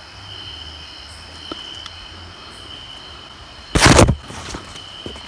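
Night insects, crickets, trilling steadily at one high pitch. Just under four seconds in there is a loud, brief rustling bump close to the microphone.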